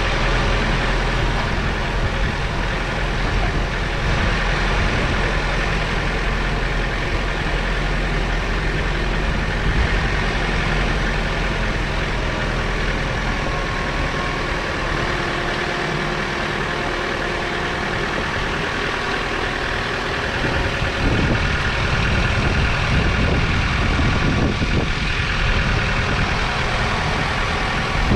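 John Deere 4066R compact tractor's three-cylinder turbo diesel running steadily as the tractor drives along, pulling a loaded trailer.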